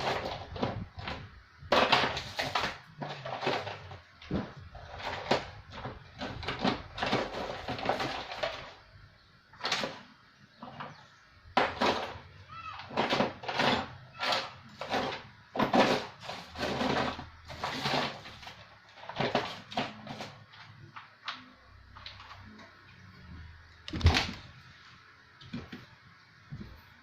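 Irregular clattering, clicks and knocks of small hard parts and tools being handled and moved about while someone searches for the remaining screws. One louder knock comes near the end.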